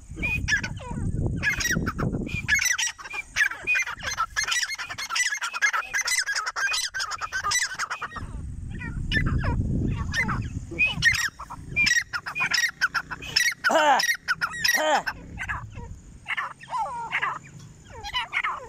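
Grey francolins calling over and over in loud, harsh, high repeated notes, thick and overlapping for most of the stretch and thinning out near the end. A low rumble comes in twice beneath the calls.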